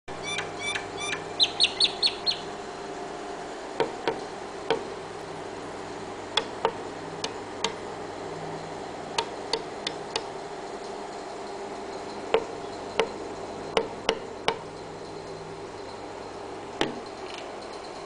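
Myna pecking at its own reflection in a window pane: sharp taps on the glass, singly and in quick pairs, every second or two. In the first two seconds the bird gives a quick run of about nine short calls, the last five louder.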